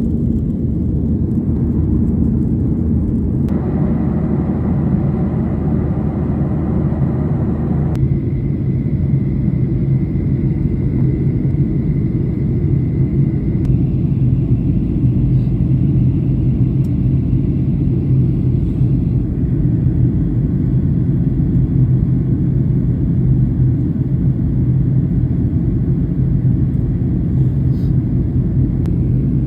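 Airplane cabin noise in flight: a steady low rumble of engines and airflow, with a faint steady whine above it. Its tone shifts slightly a few times.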